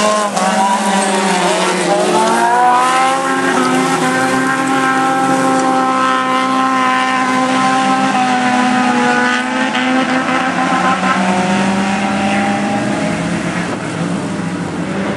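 Hatchback race car engines running hard at high revs on a dirt and grass track. The pitch climbs over the first couple of seconds, holds steady, then eases off a little near the end.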